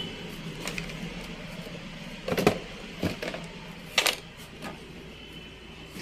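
Scattered light clicks and knocks of PC parts being handled on a table: a computer power supply and its cables being moved and set down. There are about five separate knocks, two louder ones in the middle.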